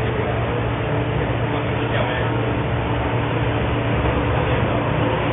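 MTR Tsuen Wan Line M-train heard from inside the carriage as it runs out of the station into the tunnel: steady running noise of wheels on rails and traction motors, with a low hum beneath.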